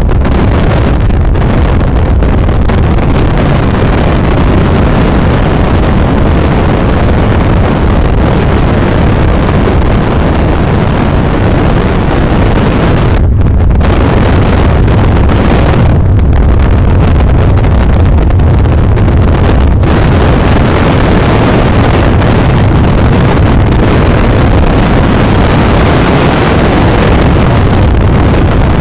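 Heavy wind buffeting the camera microphone at the open window of a car driving at speed, a continuous loud rumbling rush. It thins out briefly three times around the middle.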